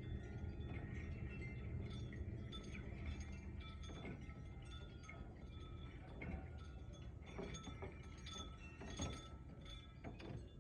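Wind chimes ringing irregularly as gusts of wind strike them, many short ringing notes of different pitches, over a low rumble of wind.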